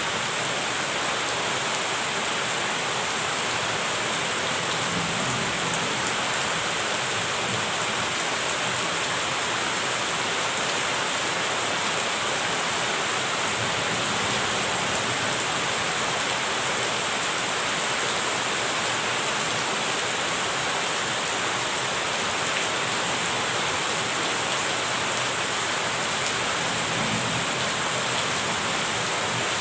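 Steady rain falling, an even hiss with no breaks, with faint low rumbles of distant thunder about five seconds in and again near the end.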